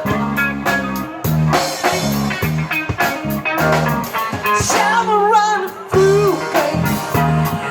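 Rock-blues music: guitar over a steady drum-kit beat, with a wavering held note near the middle.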